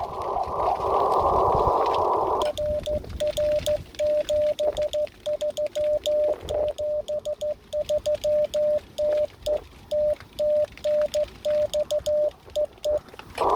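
Receiver hiss, then a Morse code (CW) signal through a radio receiver: a single steady tone of about 600 Hz keyed on and off in dots and dashes, starting about two and a half seconds in. It is a 47 GHz microwave signal received by rain scatter.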